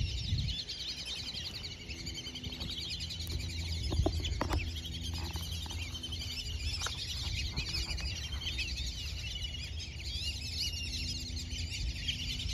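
Dense, continuous high-pitched bird chirping and twittering, with a low steady rumble underneath.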